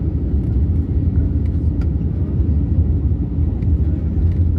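Steady low rumble of an airliner in flight, heard from inside the cabin.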